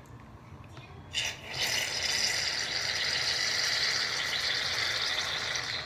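Aerosol can of shaving foam spraying, a steady hiss lasting about four seconds that cuts off sharply near the end, after a brief rattle about a second in.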